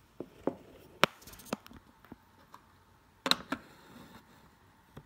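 Several short knocks and clicks, the loudest about a second in and a close pair a little after three seconds: handling noise from a phone being set up right next to a bass guitar.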